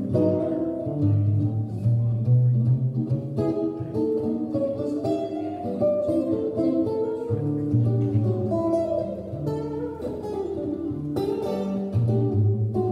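Solo hollow-body archtop guitar playing an instrumental passage: picked chords and melody notes over held low bass notes.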